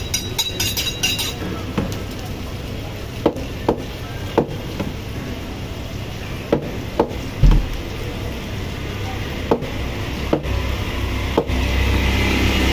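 Butcher's cleaver chopping meat on a wooden chopping block: about ten sharp, irregularly spaced chops, one of them a much louder thud midway.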